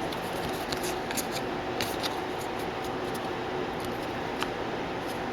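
Trading cards being handled and flipped through by hand: a few light clicks and soft scrapes of card stock over a steady background hiss and faint hum.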